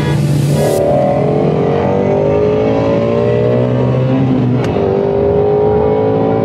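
Car engine accelerating hard, its pitch climbing steadily, then dropping at an upshift about four and a half seconds in and climbing again.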